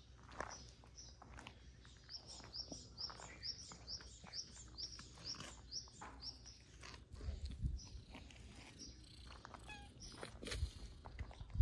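A bird calling a quick run of short high chirps, about three a second, through the middle of the stretch, over light crunching of cats' paws on gravel. Two low thumps come later, as a cat brushes close to the microphone.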